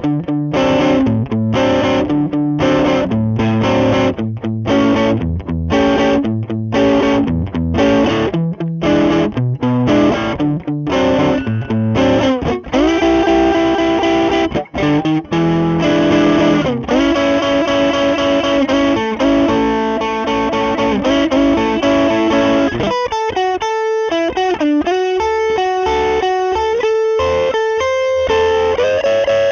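Electric guitar (Squier Jazzmaster) through a Lovepedal Blackface Deluxe, a Fender-blackface-style overdrive pedal, with the gain all the way up. It plays short chopped chords about twice a second, then held, ringing chords, and from about two-thirds of the way in single-note lines.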